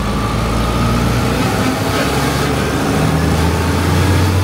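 Tractor diesel engine running steadily under way, heard from inside the cab as a loud low drone, its pitch shifting slightly partway through.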